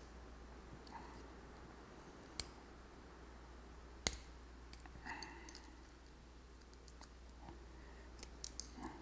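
Scattered sharp metallic clicks and ticks from picking tools working a Schlage knob-and-key cylinder. There are two louder clicks about two and a half and four seconds in, and a quick cluster of small ticks near the end.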